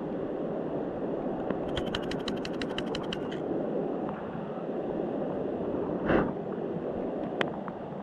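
Mountain river water rushing steadily. About two seconds in, a quick, even run of sharp clicks lasts about a second and a half, and a single thump comes near the end.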